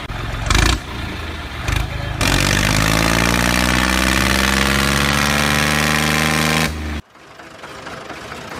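Tractor engine running rough, then picking up speed about two seconds in and holding a steady drone. It cuts off abruptly about seven seconds in, and a quieter chugging engine sound builds up after it.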